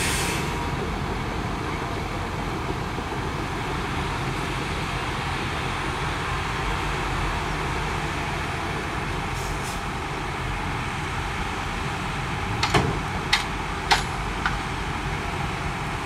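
Heavy diesel dump truck engines running steadily, with a tipper unloading dirt. Four sharp knocks come in quick succession near the end.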